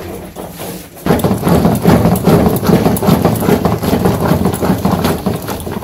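A wooden dal masher (ghutni) twirled fast between the palms in an aluminium pot of boiled lentils: a rapid clatter of wood knocking on the pot and churning the mashed dal. It gets much louder about a second in.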